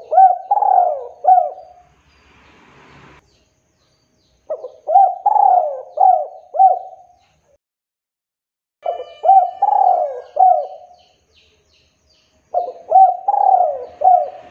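Male spotted dove cooing its song: four phrases a few seconds apart, each a quick run of three or four falling coos.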